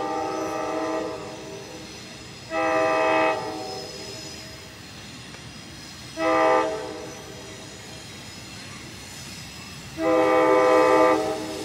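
Approaching train's locomotive horn sounding the grade-crossing pattern: a long blast that ends about a second in, another long blast, a short one, then a final long one near the end. The train runs on with a steady rumble between blasts.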